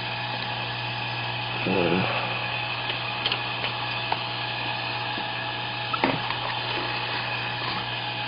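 Steady machine hum with a faint whine from workbench equipment, with a short murmured voice about two seconds in and a few small clicks.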